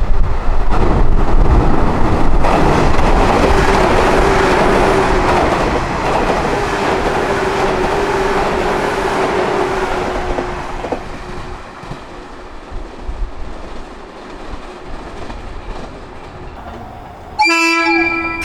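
A JR 185-series electric train going by with a loud rush and rattle of wheels on rail, fading away after about ten seconds. About a second before the end, a train air horn starts a strong blast with a rich, brassy tone.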